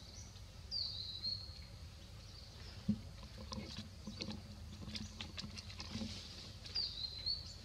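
Two high-pitched squeaks, each dropping slightly in pitch and then holding for about half a second, one about a second in and one near the end, over soft crinkling and tapping from young macaques handling a plastic wrapper.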